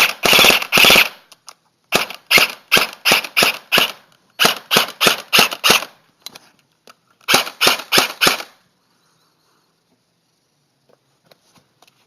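Battery-powered airsoft SCAR Light rifle dry-firing with no BBs, fitted with a homemade silencer of pen body, CPVC pipe and bottle cap: a quick burst, then groups of single shots about three a second, stopping about eight and a half seconds in.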